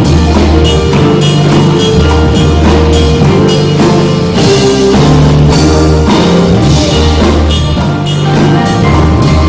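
Band music: a drum kit keeping a steady beat over held bass notes and sustained chords.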